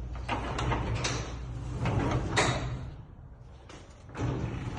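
Sectional garage door and its hardware being handled in manual mode: a series of sharp clicks, knocks and rattles over a steady low hum, quieter for a moment about three seconds in.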